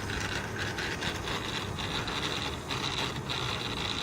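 Tail drive gears of a 700N DFC RC helicopter converted to a gasoline engine, making a gritty rasping gear noise as the drivetrain turns, with a high whine that comes and goes. This is the gear noise just after about ten minutes of flying, which seems louder to the owner.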